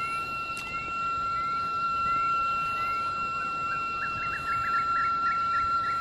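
Birds calling: short rising chirps about twice a second, then a quick warbling phrase in the second half. Under them runs a steady high-pitched whine.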